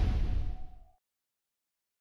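Closing logo sting: a low hit with one steady held tone over it, which dies away about a second in and leaves silence.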